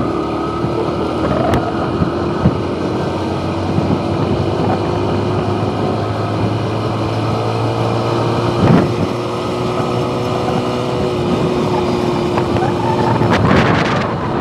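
Motorcycle engine running at cruising speed, its note rising gently and then holding steady, with wind noise on the microphone. A single bump sounds about halfway through, and the wind gusts grow stronger near the end.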